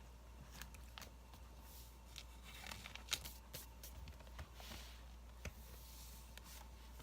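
Quiet crackling of a burning wood fire: scattered sharp pops and snaps, the loudest about three seconds in, over a low steady hum.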